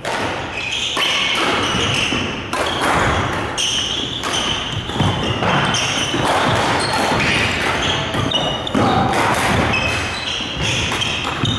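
Badminton rally: repeated sharp racket strikes on the shuttlecock and players' shoes squeaking on the court floor, echoing in a large hall.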